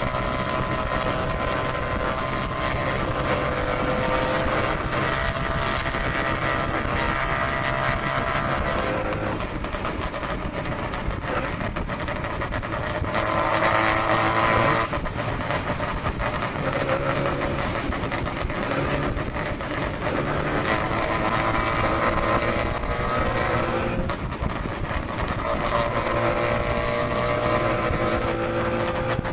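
Mazda 13B peripheral-port rotary engine running under load on the road, its revs rising and falling. About thirteen seconds in it pulls louder for a couple of seconds, then drops off suddenly as the throttle closes or the gear changes. A steady rush of wind and road noise runs under it.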